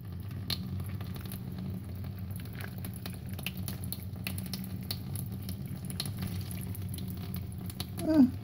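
Kitchen tap running, water splashing steadily into a stainless steel sink with small patters and drips; it comes on suddenly at the start. A brief voice sound near the end.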